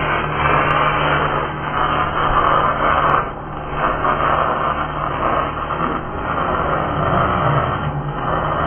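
MIG (wire-feed) welding arc crackling and sizzling steadily as a bead is laid on steel, briefly interrupted a little after three seconds in.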